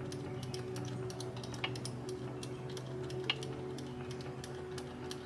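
A socket ratchet clicking in quick short strokes as it backs lock nuts off the connecting rod bolts, with two sharper clicks about a second and a half and about three seconds in. Soft background music with sustained notes plays underneath.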